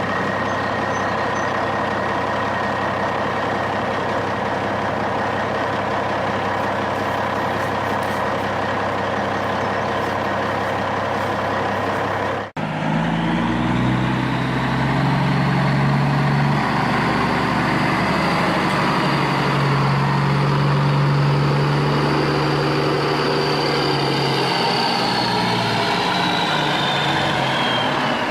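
Diesel semi-truck engine idling steadily; after a brief break about halfway, a second recording has the engine revving up in steps and running harder, with a high whine that climbs and then falls away near the end.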